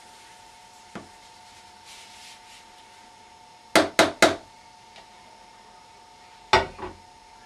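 A bowl tapped three times in quick succession against the rim of a plastic fermenting bin, knocking out the last of the sugar, then two knocks as it is set down on the kitchen worktop, over a faint steady hum.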